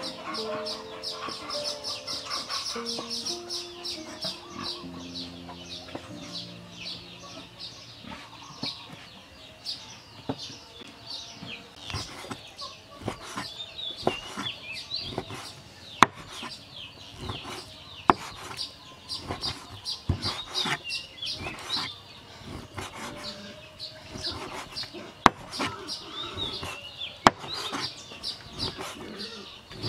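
Steel meat cleaver chopping raw meat on a round wooden chopping board: a run of short knocks from about a third of the way in, a few much sharper than the rest. Constant high bird chirping runs underneath, with a few seconds of music at the start.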